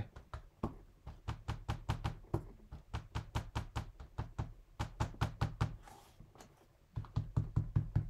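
Rapid light tapping as white pigment ink is dabbed onto card stock, about five taps a second, pausing briefly near the end before starting again.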